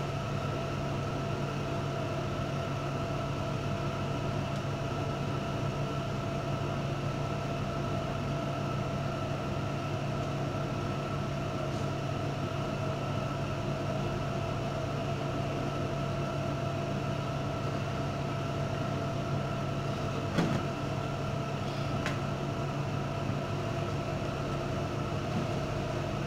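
Steady mechanical hum with a few fixed tones, like a motor or appliance running, with a light knock about 20 seconds in and a faint click shortly after.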